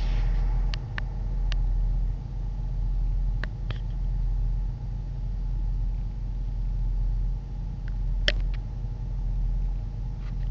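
Low, steady rumble of a car running in slow traffic, heard from inside the cabin, with a few light clicks scattered through, one sharper click about eight seconds in.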